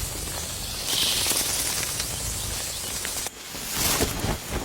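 Forest ambience: a high, hissing insect buzz comes in about a second in and stops suddenly partway through, over a low steady rumble.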